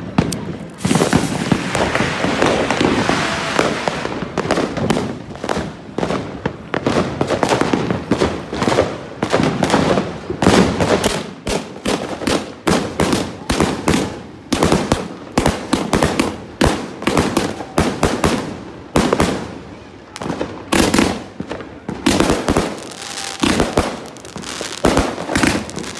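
A 214-shot 'Zig Zag' fireworks cake firing: a fast, uneven string of launch thumps and aerial bursts, several a second, going on without a break.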